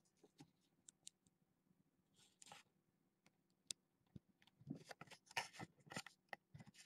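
Faint, scattered scratching, rustling and small ticks of kittens moving and playing on a rug among toys, busiest about five seconds in.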